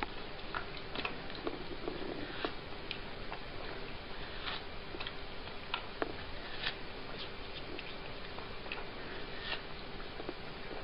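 A cat biting and chewing a slice of watermelon: irregular small clicks and crunches, about one or two a second, over a steady hiss with a faint hum.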